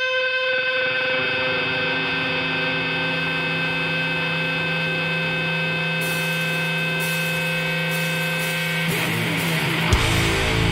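An electric guitar chord held and ringing steadily through the amp, without fading. About nine seconds in it changes, and the heavy metal band comes back in with bass and drums near the end.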